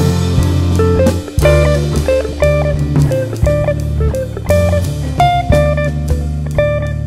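Background instrumental music: plucked guitar over bass and drums.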